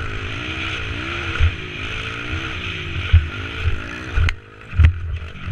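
Dirt bike engine revving up and falling back again and again as it rides across sand, with wind rushing on the helmet-mounted microphone. About four seconds in the engine note drops away, with a sharp knock and then a heavy thump as the bike crashes.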